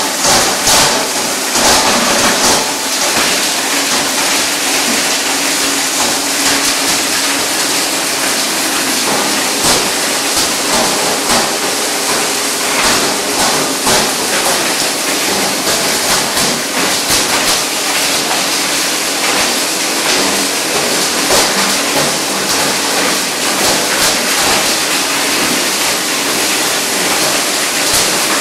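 UPVC pipe grinder, a 3-phase 20 HP plastic granulator, running and chewing up pipe pieces: a loud, unbroken din of cracking and rattling as the rotor shatters the plastic.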